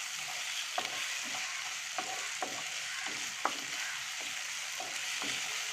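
Chopped onions frying in hot coconut oil with crushed ginger, garlic and curry leaves: a steady sizzle, with short clicks every second or so from being stirred in the pan while they soften.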